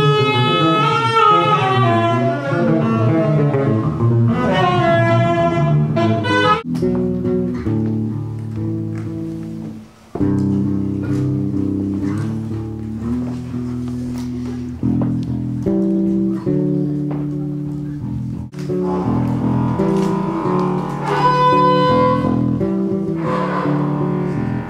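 Live improvised ensemble music. A horn plays wavering, sliding notes for the first few seconds, then a bass carries a line of low stepping notes on its own, and higher held notes come back in over it near the end.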